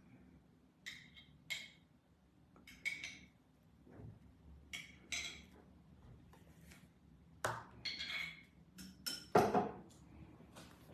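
Kitchen crockery and cutlery clinking and knocking as they are handled: a dozen or so short, separate clinks, with the loudest knock near the end.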